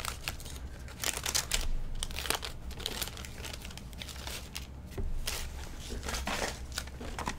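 Wax-paper wrapper of a 1978 Topps hockey wax pack crinkling in irregular crackles as it is opened by hand and the cards are slid out.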